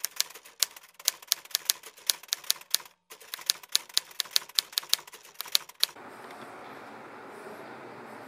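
Typewriter keystroke sound effect: a quick, uneven run of sharp clacks, about five a second, with a short break about three seconds in, stopping about six seconds in. A steady hiss of room noise follows.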